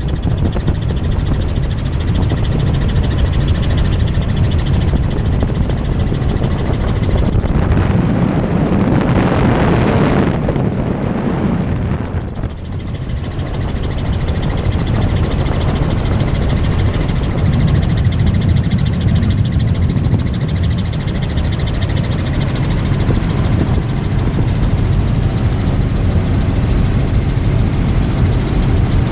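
Tour helicopter in flight: a steady, loud rotor and engine drone. A louder rushing stretch comes about eight seconds in and eases off around twelve seconds.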